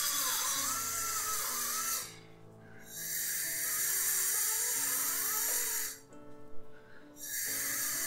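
A low-speed Ti-Max X25 contra-angle dental handpiece spinning a polishing brush against the teeth and braces to polish off stains. Its whine wavers up and down as the pressure changes, and it cuts out twice for about a second, about two seconds in and again about six seconds in. Background music plays throughout.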